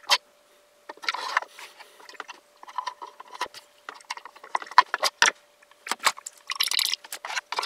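A small wooden magic prop with a bolt through its frame being handled: irregular clicks, knocks and short rattles of wood and metal. A faint steady hum runs underneath.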